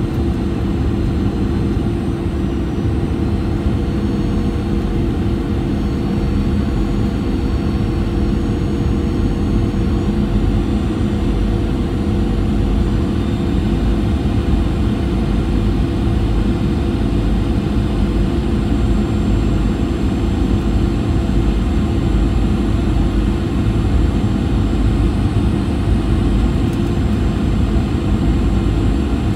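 Steady cabin noise of a Boeing 737-800 descending on approach, heard inside the cabin beside the wing: its CFM56-7B turbofan engines and the rush of air over the fuselage make a low, even rumble with a faint steady hum.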